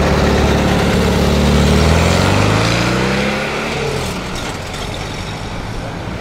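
A car's engine and exhaust pulling away: a steady low note for about two seconds, then revs climbing as it accelerates, fading as the car moves off.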